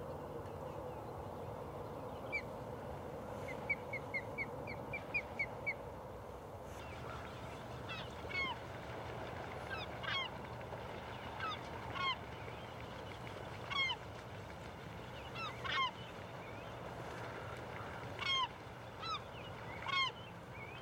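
Geese honking, one call about every two seconds, over a steady background hum. A quick run of about seven short, higher calls comes a couple of seconds in, before the honking starts.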